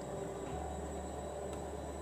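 Steady low hum and faint hiss, with soft stirring of thin curry gravy by a wooden spatula in a nonstick pan.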